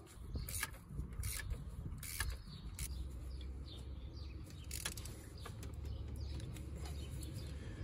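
Irregular metallic clicks and small knocks of hands and tools working on a turbo oil feed pipe fitting in a car's engine bay, over a low steady rumble.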